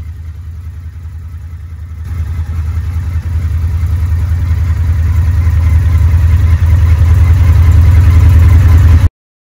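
Indian FTR1200's V-twin engine running with a deep, steady note, growing steadily louder from about two seconds in, then cutting off suddenly near the end.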